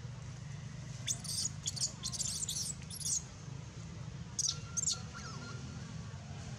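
Baby macaque giving high-pitched squeaks while nursing at its mother's chest, in two clusters of short squeals with rising and falling pitch, about a second in and again near five seconds.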